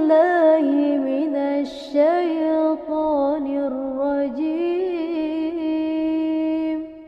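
A single unaccompanied voice chanting a slow, ornamented melody with long held notes and gliding turns between pitches. It fades out just before the end.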